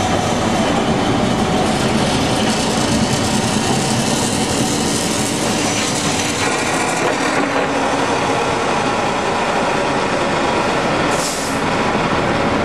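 Electric streetcars running past on the rails, a steady rolling noise that keeps on without clear breaks.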